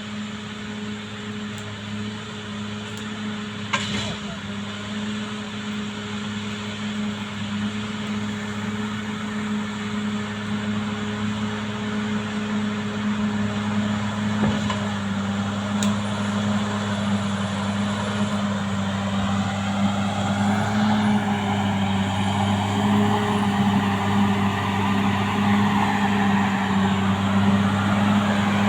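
Caterpillar D6R XL bulldozer's diesel engine running at a steady pitch, growing gradually louder. A single sharp knock comes about four seconds in.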